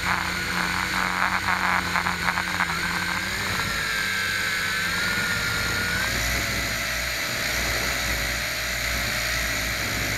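A camera drone's electric motors and propellers whining steadily, their pitch stepping up about three and a half seconds in and again about six seconds in as the drone manoeuvres. A fast, pulsing rattle runs through the first three seconds.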